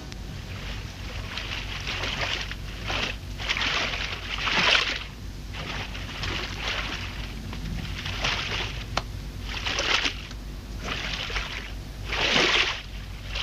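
Pool water splashing and sloshing in a series of strokes, one every second or two, as a float is paddled by hand.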